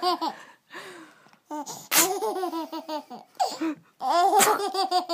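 Baby laughing in repeated bouts of quick, rhythmic giggles, with short breaths between the bouts.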